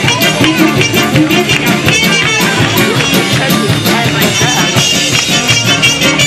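A live band playing upbeat dance music: a drum kit keeping a steady beat under guitar, fiddle and upright bass, coming through the stage speakers.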